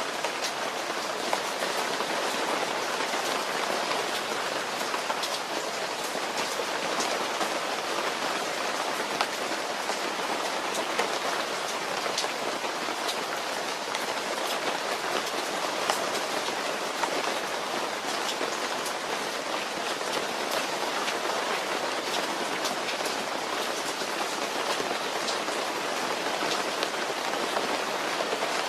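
Steady rain falling, a dense even hiss with many small drop ticks mixed through it.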